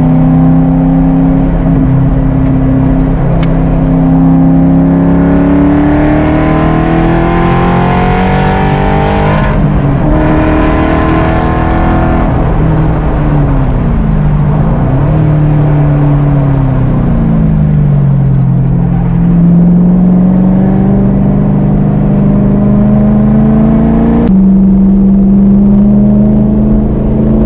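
Ford Coyote V8 of a Factory Five Type 65 Daytona Coupe at speed on track, heard on board. The engine note climbs steadily under acceleration and breaks about nine seconds in, then falls and dips twice as the car slows through corners before climbing again under throttle.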